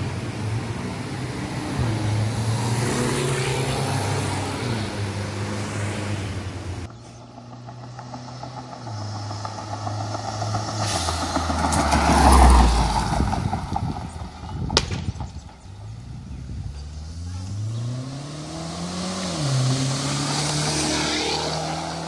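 Mazda CX-7 with an aftermarket cat-back exhaust driving past and accelerating. Its exhaust note swells loudest a little past halfway, then rises in pitch under acceleration and drops sharply at a gear change, before running steady again.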